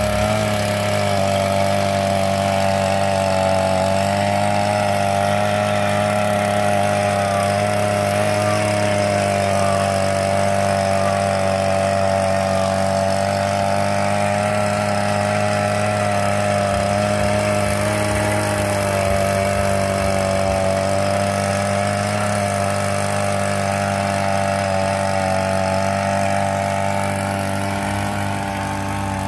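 Brush cutter engine running steadily at working speed, driving a rotary tiller attachment through soil. A steady engine hum whose pitch wavers slightly under load, easing a little in loudness near the end.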